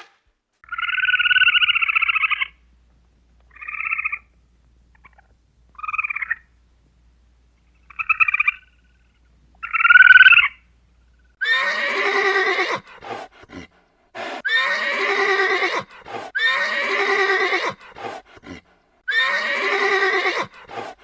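Animal calls: one drawn-out high call, then four short ones spaced a couple of seconds apart, then four longer, fuller calls in a row about two seconds apart.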